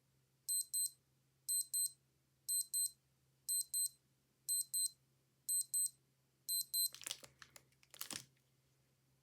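Old digital watch alarm beeping: a high double beep, beep-beep, repeated once a second, seven times. It then stops and is followed by a few clicks and rattling handling noise.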